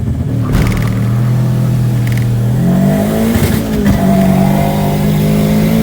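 Proton Wira's turbocharged 4G15 four-cylinder engine with unequal-length headers, pulling under hard acceleration. The engine note holds steady, climbs in pitch about three seconds in, dips briefly at a gear change, then holds high again.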